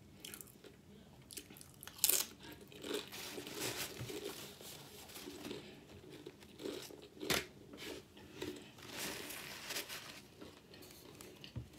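Close-up crunching and chewing of spicy Doritos tortilla chips: irregular crisp crunches, the loudest bites about two seconds in and again about seven seconds in.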